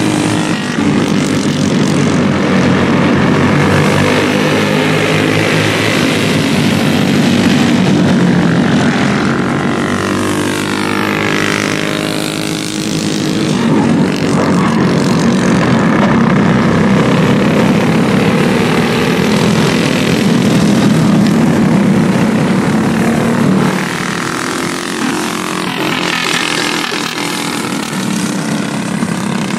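A pack of racing go-karts' small engines running at speed around an oval, a continuous buzzing drone. Its pitch sweeps as karts pass close by, and it eases off briefly twice as the pack moves away.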